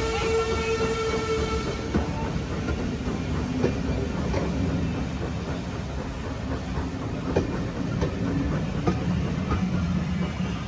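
A steam locomotive's whistle holds one steady tone until it stops about two seconds in. Passenger coaches then roll past with a low rumble and irregular clacks as their wheels cross the rail joints.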